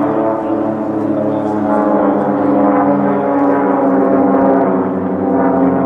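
Piston engines of three aerobatic propeller biplanes flying in formation: a loud, steady drone of several engines together, the pitch drifting slightly as they pass.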